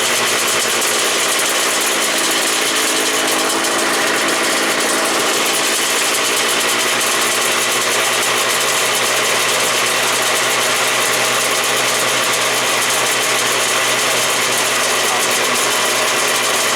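Honda NSR500 two-stroke V4 race engine in 1997 big-bang firing-order spec, running steadily at idle. Its pitch wavers slightly a few seconds in.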